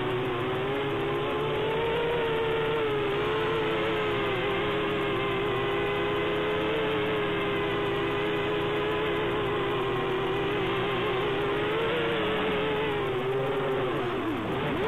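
Quadcopter's electric motors and propellers whining in flight, the pitch wavering gently as the throttle is adjusted. Near the end the pitch drops sharply and swings back up.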